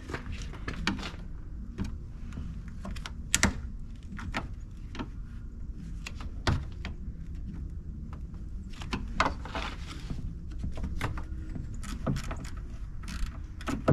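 Irregular clicks, clinks and knocks of hand tools and metal parts being handled during car repair work, over a steady low rumble.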